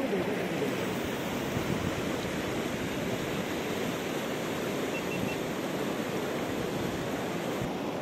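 Shallow, clear river running over stones: a steady rushing of water.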